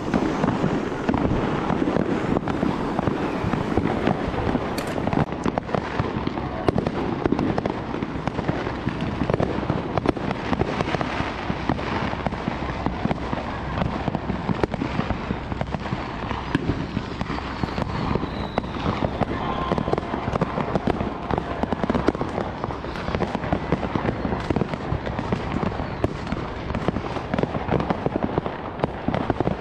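Fireworks and firecrackers going off all around in rapid succession: a dense, unbroken crackle of bangs.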